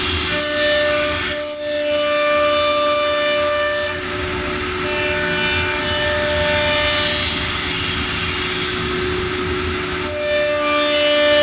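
CNC woodworking machine running: a steady mechanical whine made of several high tones, getting louder about a second in, easing off around four seconds and rising again near the end.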